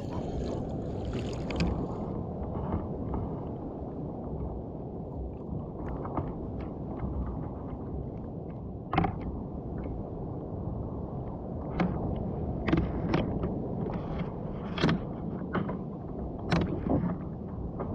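Water sloshing around a kayak on the open sea, a steady low rush of water and wind, with sharp splashes or knocks against the hull every second or two in the second half.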